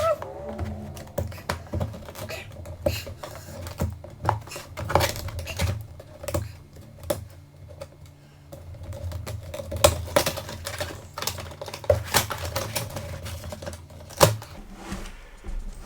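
Hands unpacking a boxed appliance: irregular clicks, taps and knocks of cardboard and plastic packing being handled, with light rustling between them.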